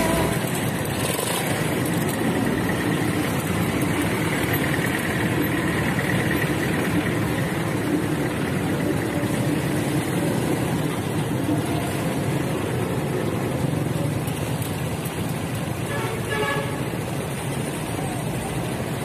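Steady engine noise of a motor tricycle, heard from inside the tricycle, with street traffic around it. A short horn toot sounds about sixteen seconds in.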